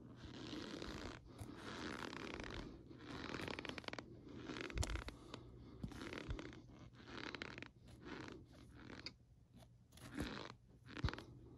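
Spoon scooping and pressing into a heap of dry cornstarch, making a run of crunchy, scratchy squeaks, stroke after stroke with short pauses. A couple of sharper knocks, about five seconds in and near the end, come from the spoon meeting the plate.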